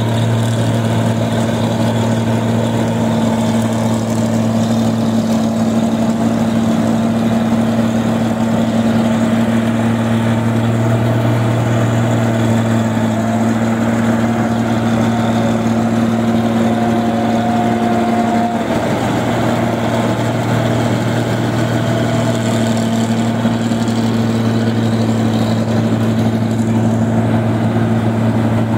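New Holland Clayson 1545 combine harvester working through a rice crop, its engine and machinery giving a loud, steady, unbroken drone.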